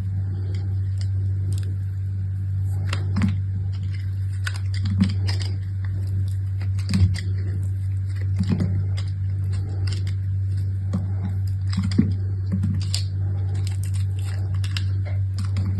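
Soap packaging being handled and unwrapped: scattered small crinkles, taps and clicks, over a steady low hum.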